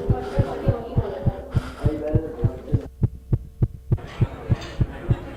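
Fast heartbeat-like thumping, about four beats a second, over a muffled jumble of tones, hum and noise. About three seconds in, the jumble drops away for a second, leaving only the thumps and a steady hum, then returns.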